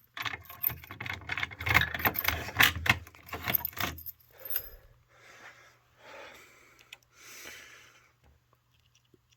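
Jangling, clattering rattle of small hard objects being handled for about the first four seconds, then only fainter muffled sounds.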